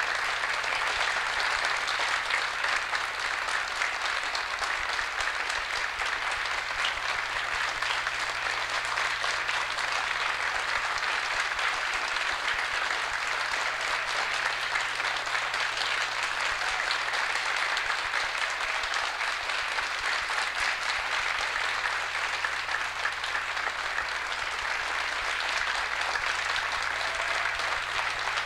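Audience applauding steadily: dense, even clapping with no break.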